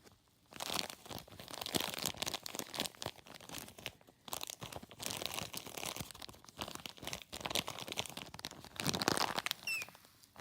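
Plastic Ziploc bag crinkling and crackling as it is squeezed and handled, almost continuously.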